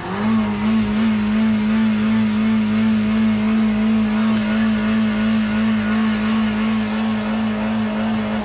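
Car engine revving up on its own and held steady at high revs with nobody pressing the throttle: a runaway idle caused by the floor mat pinning the gas pedal down.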